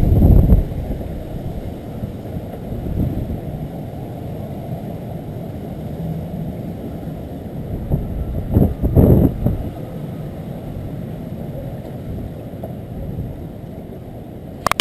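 Storm wind buffeting the microphone as a low, gusty rumble, with stronger gusts at the start and about nine seconds in, and a sharp click just before the end.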